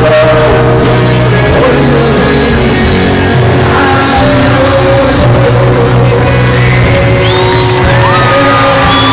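A rock band plays loudly through a stadium PA, with guitars, piano and voice, and the crowd shouts and whoops along. High sliding whistle-like tones rise over the music near the end.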